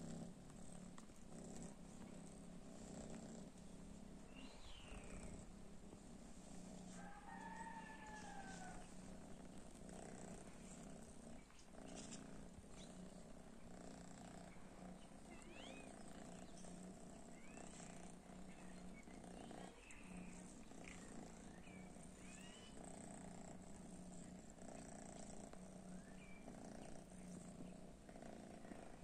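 Domestic cat purring steadily and softly, with a few faint short high calls here and there.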